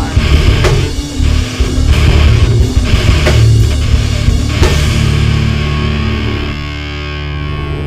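Metalcore band recording with distorted guitars, bass and drums playing hard. About five seconds in the drum hits stop, and a low sustained drone rings on, gradually dulling and fading.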